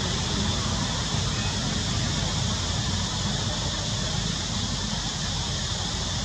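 Steady outdoor ambience: a low rumble under a constant high hiss, with no distinct events.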